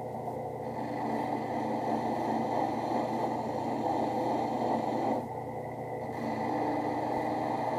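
Benchtop drill press running steadily with a sanding drum, and the edge of a leather holster held against the spinning drum: leather rasping on the abrasive in two passes, the first from about a second in, a brief break near five seconds, then a second pass.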